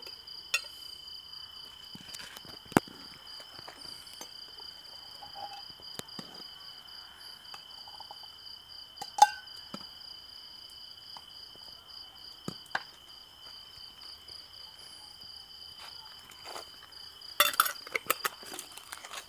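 Crickets chirping in a steady, pulsing high trill, with a few sharp clinks of glass jars, lids and a metal ladle. The loudest clink comes about nine seconds in, and a short clatter follows near the end.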